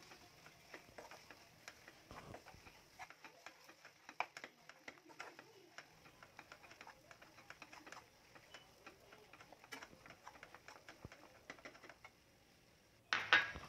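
Jaggery melting in ghee in a metal pan, crackling faintly with scattered small ticks and pops while a spoon stirs it. A short, louder burst of noise comes near the end.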